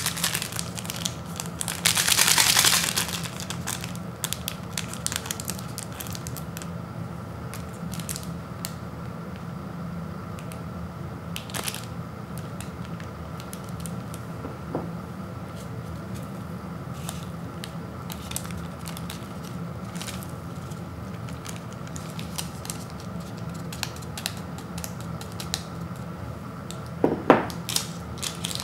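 Foil ramen seasoning packet being handled and torn open: crinkling and small clicks, with a rough, loud burst lasting about a second near the start and a short sharp crackle near the end, over a low steady hum.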